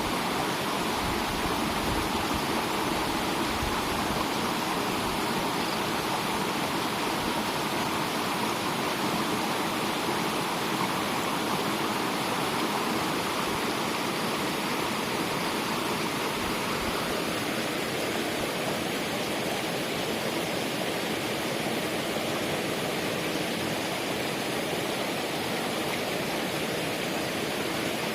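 Fast-flowing water rushing steadily, an even unbroken wash of sound.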